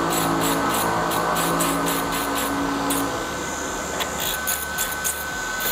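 Slow-speed dental contra-angle handpiece spinning a Sof-Lex polishing disc against a composite filling, a steady motor whine with a rhythmic high scratching about three times a second. The tone changes and it gets a little quieter about three seconds in.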